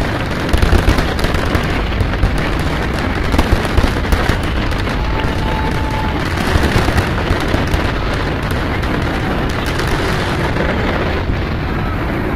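Aerial fireworks shells bursting in rapid, continuous volleys of booms and crackle, loudest about half a second in, around three to four seconds in and again around seven seconds in.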